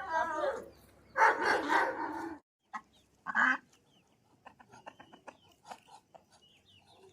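Chickens clucking: a few loud calls in the first couple of seconds, then soft, scattered short clucks.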